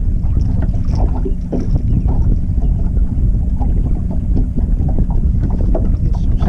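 Wind buffeting the microphone in a loud, low rumble over the steady hum of a boat motor, with scattered small knocks and clicks.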